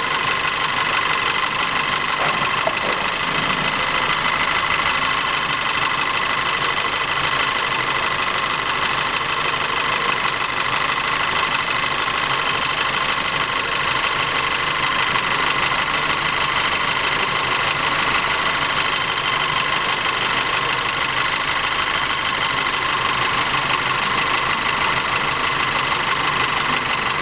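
Audi TT's 2.0 TFSI turbocharged four-cylinder engine idling with a steady, rapid knock. It is the sign of an engine fault that the workshop traced to low compression and misfire in one cylinder.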